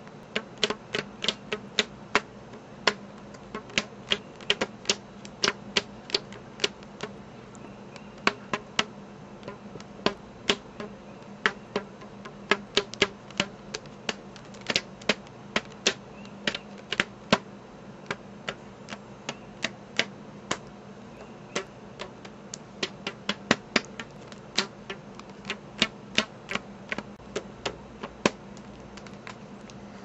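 Stretched rubber bands being plucked and snapped, giving a run of sharp, irregular clicks, roughly two a second.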